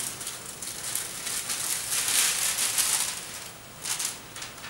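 Slip solution being sprayed onto the rear window glass for window tint film, a hiss that swells to its longest, loudest spray about two seconds in, followed by shorter spurts near the end.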